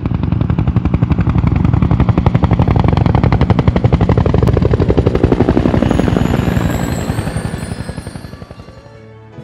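Logo sting sound effect: a loud, fast pulsing of about ten beats a second that swells in at the start and fades out over the last few seconds, with thin rising high tones near the end.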